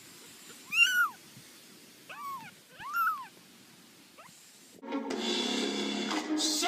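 A cat meowing three times in short, high, rise-and-fall calls, then music starting abruptly about five seconds in.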